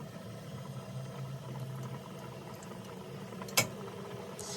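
Sauce being spooned into a baking dish over a low steady hum, with one sharp clink of the spoon against the dish about three and a half seconds in.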